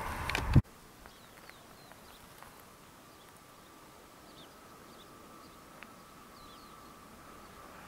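A loud rush of noise cuts off abruptly about half a second in. Then quiet countryside follows, with small birds chirping now and then and a faint steady hum that grows a little near the end.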